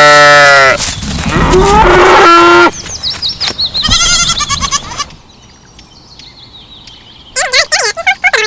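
Farm animals calling: a cow moos loudly at the start and again with a gliding pitch, then, after a few quieter chirps, wavering bleats come in near the end.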